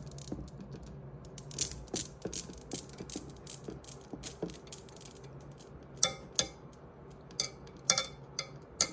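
Steel balls of a Newton's cradle clicking against each other at about three clicks a second. In the second half a kitten bats at the balls, giving a few louder, irregular clacks with a short metallic ring.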